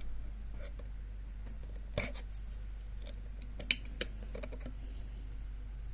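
Scattered sharp clicks and light knocks of the old Hobbs lever lock's metal parts and brass cover being handled as the lock is opened up. The two loudest clicks come about two seconds in and near the middle, over a steady low hum.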